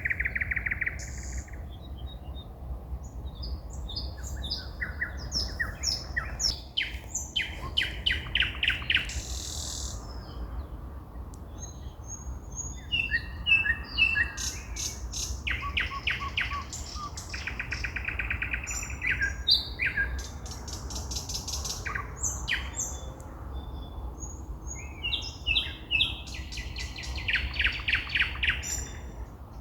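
Songbirds singing at night: phrases of fast repeated notes and trills, each a second or two long, with short pauses between them, over a steady low rumble.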